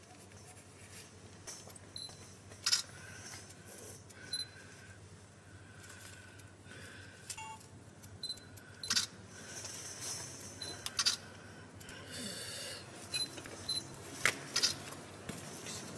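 Light clicks and scraping of a hand spatula spreading GM8300 metal repair putty over a patched finned pipe, with a few short high tones in between.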